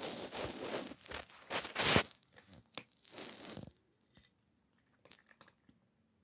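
Cat crunching dry kibble, a quick run of crisp crunches for the first two seconds, loudest just before the end of that run. Another short spell of chewing follows a second later, then only a few faint clicks.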